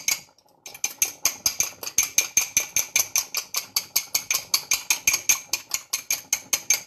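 Egg yolk being beaten by hand in a small glass, the utensil clicking against the glass in a quick, even rhythm of about five strokes a second. There is a short pause near the start.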